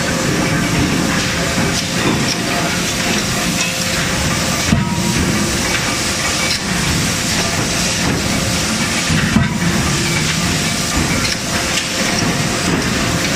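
Forge-shop noise at a CNC hydraulic die forging hammer: a loud, steady hiss, with a brief knock about every four to five seconds.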